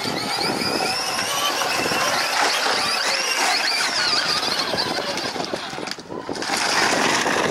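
A children's battery-powered ride-on quad bike driving over dirt and gravel, its small electric motor and plastic gearbox whining in a high, wavering pitch over the rumble of its wheels. The whine drops out briefly about six seconds in.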